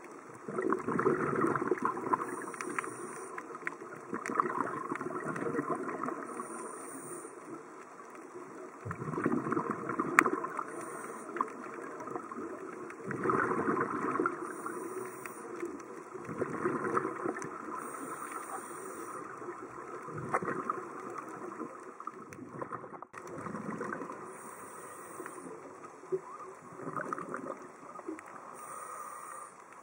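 Scuba regulator breathing underwater: rushing, gurgling bursts of exhaled bubbles every few seconds, each lasting one to three seconds, with short high regulator hisses between some of them.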